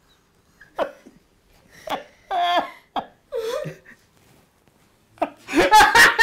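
People giggling in short, breathy bursts, breaking into loud laughter about five seconds in.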